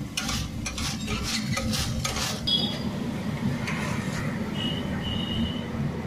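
A metal perforated skimmer scraping and clattering against a large iron kadai as potato chips are stirred and lifted in hot frying oil. The strokes come thick and fast in the first half, then thin out. A steady low hum runs underneath.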